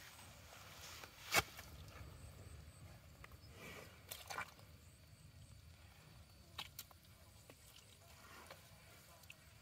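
Faint, scattered wet sounds of water buffalo shifting in soft mud, with a sharp click about a second and a half in that is the loudest sound, and a few softer clicks later on.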